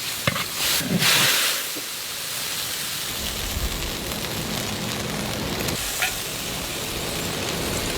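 Stew sizzling in a large wok, with a couple of stirring strokes in the first second or two, then a steadier hiss with a low rumble joining about three seconds in.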